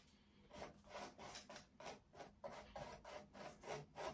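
A painting tool scratching across textured acrylic paint in quick, short strokes, about three or four a second, as line work is sketched over the painting.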